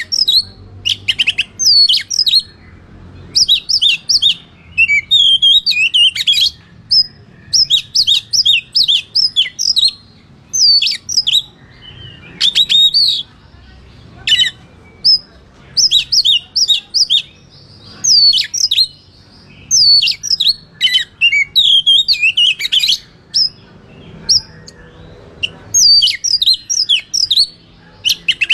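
Oriental magpie-robin (kacer) singing a loud, fast song of sharp whistled and chattering notes, delivered in bursts a few seconds long with brief pauses between them.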